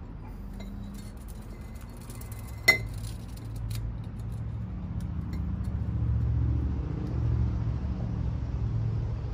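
A single sharp clink of a hard tool against a glass bottle, with a brief ring, a little under three seconds in. Under it a low rumble grows louder through the second half.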